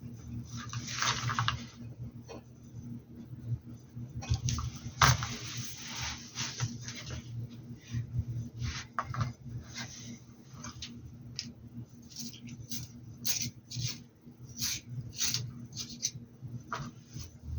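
Close handling noise of painting work: scratchy brush strokes with many small clicks and taps, thicker toward the end, over a low steady hum.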